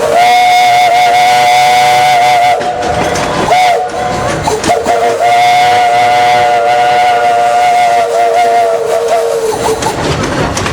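Steam locomotive whistle blowing a chord: a long blast, a short toot, then another long blast. The locomotive is Flagg Coal #75.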